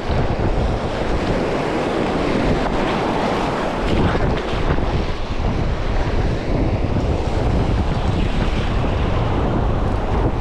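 Surf washing and churning over a shallow reef, with wind buffeting the microphone in a steady rumble.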